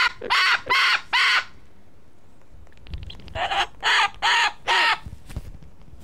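Cockatoo screeching: a run of short, harsh calls at the start, a pause, then another run of about four calls around three and a half seconds in.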